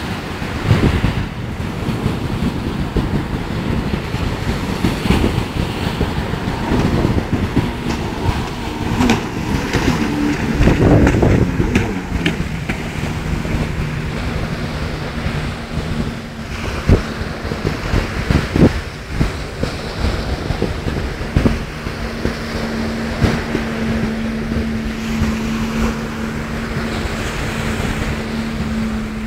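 Jet ski (Sea-Doo GTX personal watercraft) engine running offshore with a steady drone that drops in pitch about 12 seconds in and then holds, over breaking surf and wind buffeting the microphone.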